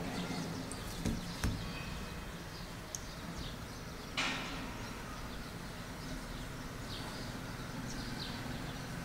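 Steady background room noise picked up by an open microphone, with a low hum. A few short high chirps and clicks stand out, and there is a brief sharper hiss about four seconds in.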